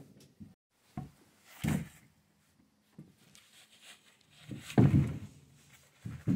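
Wooden cabin door and screen door being handled: a few separate knocks and clunks, the loudest cluster about five seconds in.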